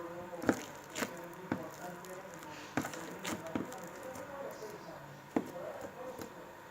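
Slime being squeezed and worked by hand, giving irregular wet clicks and pops, a few of them a second apart.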